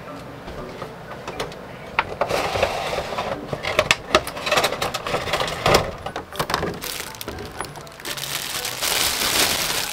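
Utility knife slitting the tape on a cardboard figure box, followed by the box being opened and a figure in clear plastic packaging pulled out: irregular scraping, clicks and plastic crinkling.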